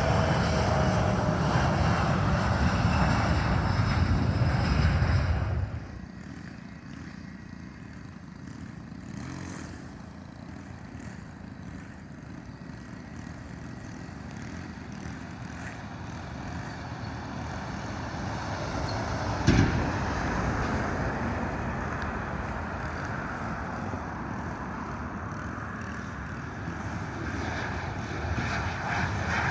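Aircraft engine noise, loud for about the first six seconds, then cutting off suddenly to a much quieter steady rumble that slowly grows louder, with a single sharp knock about two-thirds of the way through and the engine noise building again near the end.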